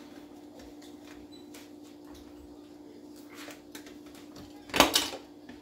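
Small plastic clicks of a mini food processor being handled and assembled, then one sharp plastic clatter about five seconds in. A steady low hum runs underneath.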